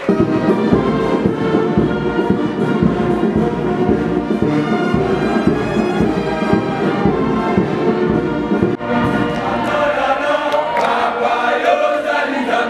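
A choir singing a hymn with instrumental accompaniment, full and continuous, with a momentary break about nine seconds in.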